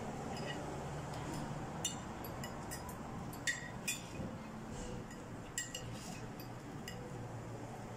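Cutlery clinking against a plate as food is handled, a handful of light, separate clinks at uneven intervals, over a steady low restaurant room hum.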